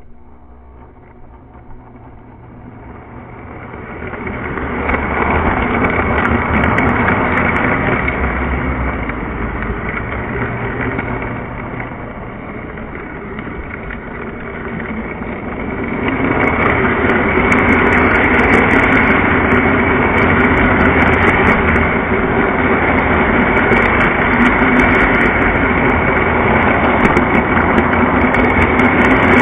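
Lionel O-gauge model train running on three-rail track, heard from a camera riding on it: a steady rolling and motor noise that builds as it gets under way about four seconds in, eases a little, then grows louder again from about halfway, with light clicking over it.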